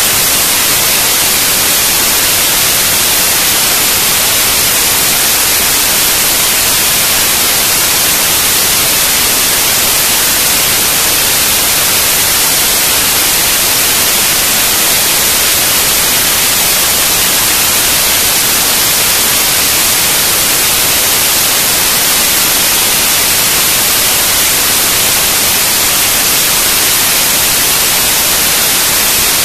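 Loud, steady hiss like static or white noise, brightest in the treble, with no clicks, tones or changes.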